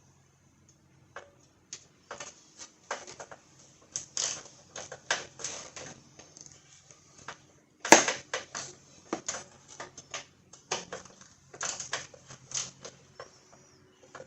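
Metal hand tools clinking and clattering in irregular clicks and knocks, with one sharp, loudest knock about eight seconds in.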